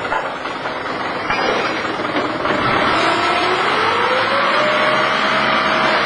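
A machine's motor running, with a whine that rises in pitch about halfway through and then holds steady.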